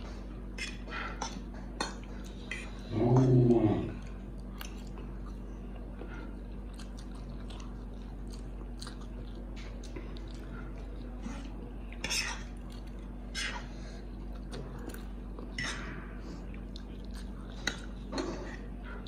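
Two people eating instant noodles with forks: close chewing and slurping, with small clicks and scrapes of forks on the plates, over a steady low electrical hum. About three seconds in a short, low moaning sound is the loudest thing.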